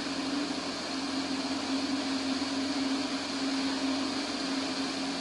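Steady drone of a light propeller aircraft's engine in flight: a constant low hum over an even hiss.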